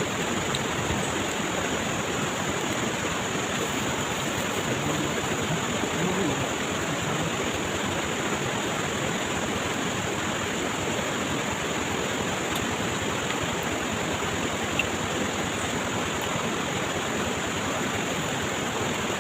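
Steady rush of flowing water, like a stream running past, with a steady high-pitched hum above it.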